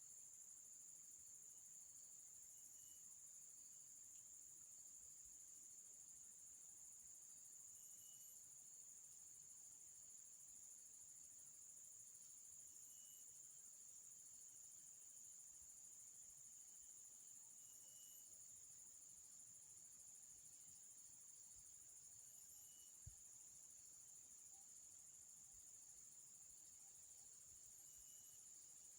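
Faint, steady, high-pitched insect trilling, with a brief faint chirp about every five seconds.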